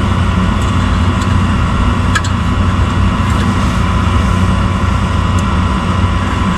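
Packaged gas heating unit (gas pack) running steadily, its motors giving an even low hum, with a light tick about two seconds in.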